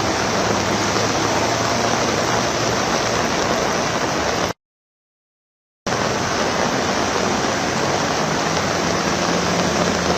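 Heavy rain pouring down, a loud, dense, steady hiss with a low hum of traffic under it. It cuts out completely for about a second midway, then resumes unchanged.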